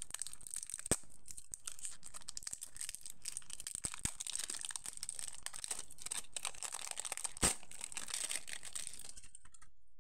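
Thin plastic wrapping crinkling and tearing as it is peeled by hand off a rolled diamond-painting canvas, with a few sharp clicks along the way. The crinkling stops about a second before the end.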